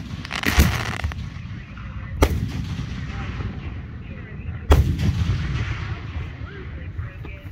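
Aerial fireworks booming: three loud bangs about two seconds apart, each trailing off in a rolling echo.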